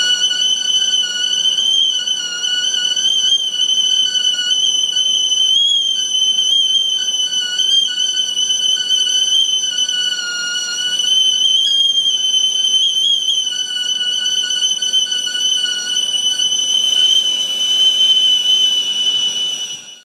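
Tea kettle whistling at the boil through a homemade brass hole-tone whistle: one steady high whistle that wavers slightly in pitch, with a fainter lower tone coming and going underneath.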